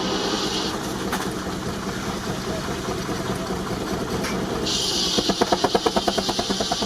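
Baker 19-65 Uniflow steam traction engine running while belted to a sawmill. A steady high hiss stops about a second in and comes back about five seconds in, and near the end a quick regular beat of about five or six a second sets in.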